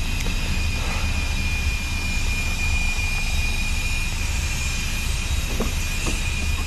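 Steady drone of car-wash vacuum machinery: a constant high whine over a low rumble. A couple of light clicks near the end as a car door handle is pulled.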